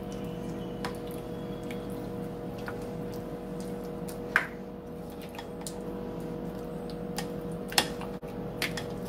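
A spoon stirring chicken chunks into a thick mix of cream soup and sour cream in a bowl: wet squishing, with a few sharp clicks of the spoon against the bowl. A steady hum runs underneath.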